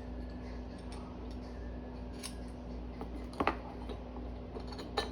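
Light metal clicks and clinks of chain-guide plates and bolts being handled and a bolt worked in by hand, with louder clicks about three and a half seconds in and near the end, over a steady low hum.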